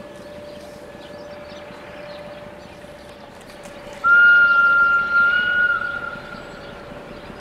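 Warning whistle of an approaching Electroputere LDE 2100 (CFR Class 60) diesel-electric locomotive: one loud, single-pitched blast about four seconds in. It lasts around two seconds and wavers before fading.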